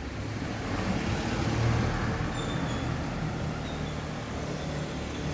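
A motor running steadily, with a low hum and a broad noise that swells slightly between about one and two seconds in.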